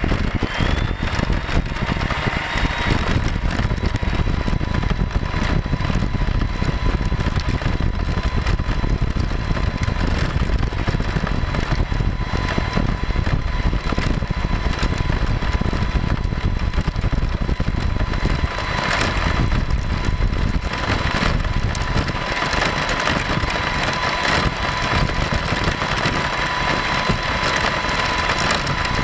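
Onboard sound of an Axial Deadbolt 1/10-scale RC crawler driving on a gravel road: the electric motor and drivetrain give a steady whine that rises in pitch about a second in, over the rumble of the tyres on gravel.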